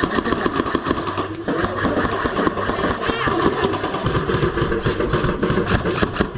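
Airsoft electric guns firing rapid full-auto bursts, a fast run of clicks that goes on almost without a break.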